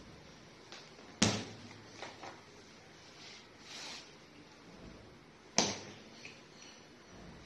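Two sharp clacks from handling a foldable baby playpen's frame, one about a second in and one past halfway, with a few lighter ticks and some fabric rustling in between.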